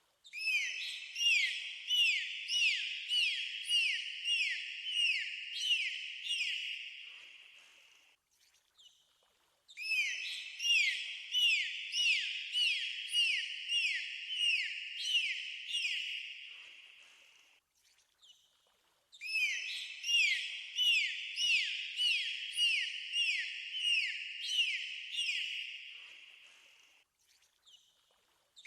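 Dolphins whistling: a run of about a dozen quick arched chirps that fades out over about eight seconds, then starts again after a short pause, three times in the same pattern like a loop.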